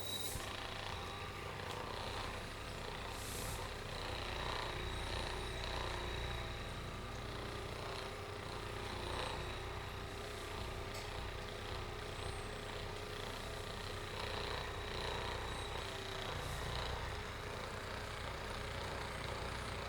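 Steady low mechanical hum with a thin, constant high whine over it, unchanging throughout, with a few faint clicks.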